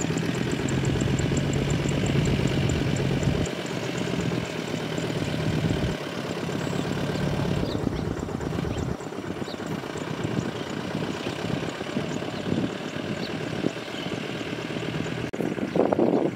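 Yanmar YM357A tractor's diesel engine running steadily while it pulls a rotary tiller through a flooded rice paddy. Its low hum changes character a few times.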